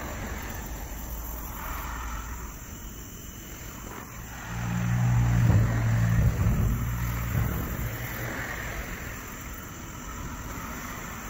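Road traffic: a vehicle passes, its low hum swelling about four seconds in, loudest a second or two later, then fading away over a steady background of traffic noise.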